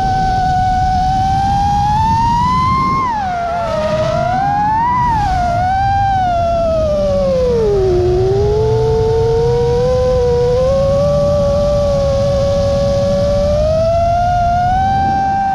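FPV quadcopter's motors and propellers whining, the pitch rising and falling with the throttle: climbing about three seconds in, dropping sharply, surging again, sinking to its lowest about eight seconds in, then slowly rising, over a steady low rush of wind and prop wash.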